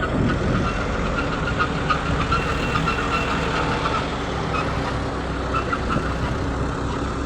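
Caterpillar 120B hydraulic excavator's diesel engine running steadily as the machine works, with scattered knocks and rattles.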